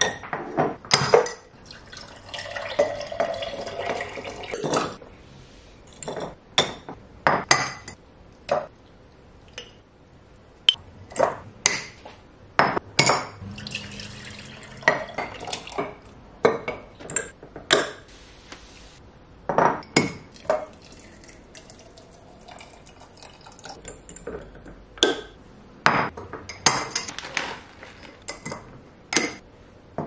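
Glass clip-top jars clinking and knocking on a countertop, their wire-bail lids clacking shut, with liquid and pickles being poured and tipped into the jars in between. Many separate sharp clinks scattered throughout.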